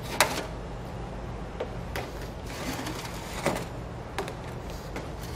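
Plastic airline tubing being pulled hand over hand through a hole in a car's trunk, dragging taped wiring behind it: scattered scrapes, rubs and clicks as the tube slides through and knocks about.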